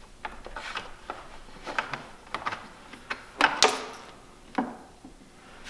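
Scattered light clicks and knocks from a small camera and its wire being handled and fitted at a side-by-side's front bumper, with a few sharper clicks a little past halfway.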